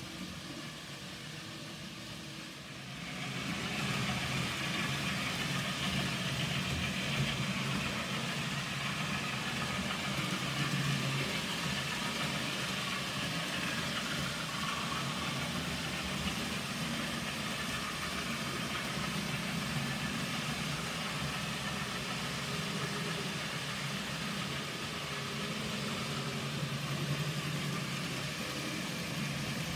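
N gauge model trains running on the layout: a steady motor hum and wheel rumble on the track, getting louder about three seconds in.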